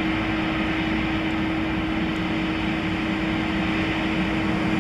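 Steady machine hum with a constant low-pitched drone and an even wash of noise over it.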